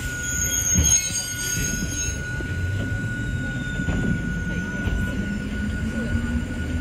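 Hakone Tozan Railway Moha 1 electric railcar moving: a high wheel squeal over the first couple of seconds, then a low whine rising slowly in pitch as the car gathers speed, over the rumble of the wheels and a steady high tone.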